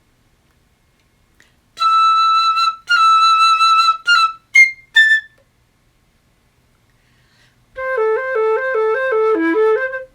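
Solo flute playing birdsong-like phrases: a long high note, then repeated notes and short high chirps, then a pause. About two-thirds of the way in, a fast lower two-note trill begins and steps downward.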